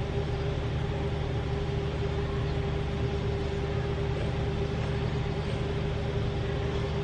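Steady mechanical hum: a low drone with a faint constant tone over it, unchanging throughout.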